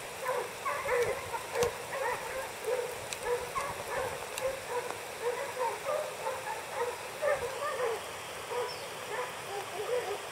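A pack of boar-hunting dogs barking and baying in a long irregular string of short, overlapping calls, several a second. This is the pack giving tongue as it runs wild boar.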